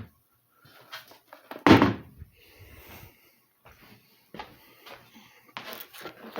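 Knocks, clunks and rustling from things being moved and handled, with one loud thump about a second and a half in.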